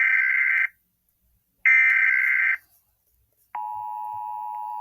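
Emergency Alert System broadcast tones: two harsh, buzzy SAME header data bursts, each just under a second with a short silence between them. About three and a half seconds in, a steady electronic attention tone starts; it is quieter than the bursts and signals that a new warning is about to be read.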